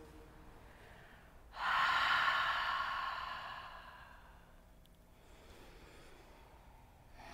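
A person's long audible exhale, starting suddenly about a second and a half in and fading away over two to three seconds, then faint room tone.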